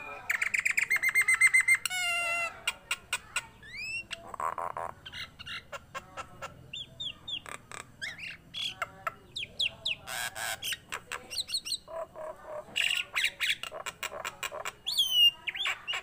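Common myna singing a long varied song: a fast rattling trill at the start, then a string of rising whistled notes, sharp clicks and harsh squawks, with louder squawks around the middle and whistled notes near the end.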